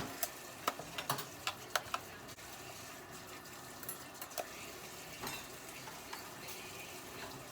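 Kitchen utensils and dishes clicking and clinking: a quick run of sharp clicks in the first two seconds and a few more later, over a steady low hiss.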